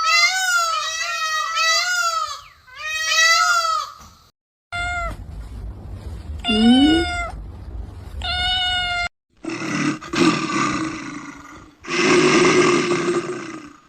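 Cats meowing and yowling in a string of short clips, each cut off abruptly. The opening call wavers up and down over and over, and the last two calls near the end are rougher and noisier.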